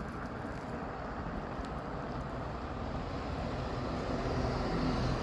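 Blizzard wind rushing and rumbling, slowly building louder toward the end.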